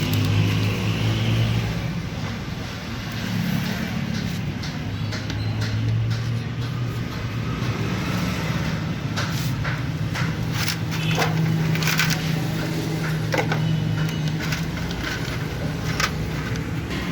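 Steady low hum of road traffic, with scattered light metallic clicks and taps, densest in the middle and later part, as hand tools and parts are worked on an opened motorcycle engine's timing chain and tensioner.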